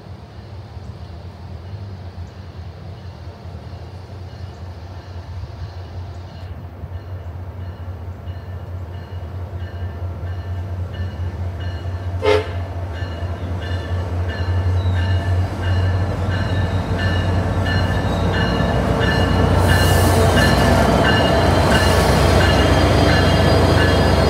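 SunRail commuter train's diesel locomotive approaching and pulling into the station, its engine drone growing steadily louder. There is a short sharp tone about halfway, and high ringing tones and rail noise in the last third as it passes close by.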